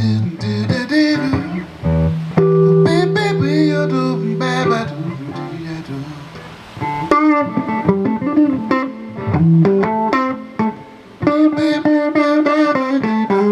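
Live blues band playing an instrumental break, with a guitar taking the lead in bending, sliding notes over bass.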